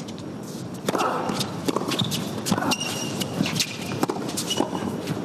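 Tennis serve and baseline rally on an indoor hard court: sharp racket strikes on the ball and ball bounces, with brief rubber shoe squeaks on the court surface.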